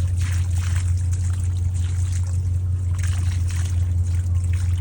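Water pouring and splashing over a steady low motor hum.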